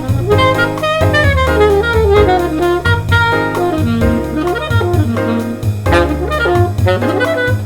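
Saxophone improvising a fast jazz line over a backing track with walking bass and drums, aiming its phrases at a chosen chord tension such as the sixth of each chord.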